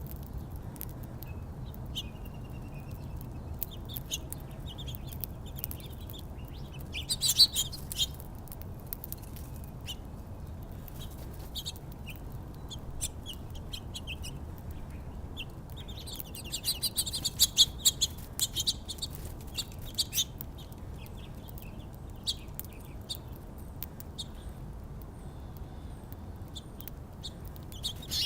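Small songbirds chirping in short, scattered calls, busiest about seven seconds in and again from about sixteen to twenty seconds in, over a steady low rumble.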